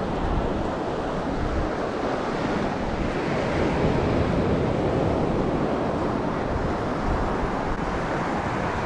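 Ocean surf washing steadily onto the beach, with wind buffeting the microphone in low gusts.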